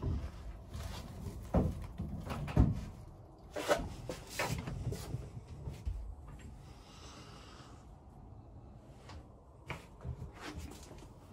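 Knocks and thumps of things being handled and bumped in a small sailboat cabin: several sharp knocks in the first five seconds, then quieter handling noise with a few lighter knocks later.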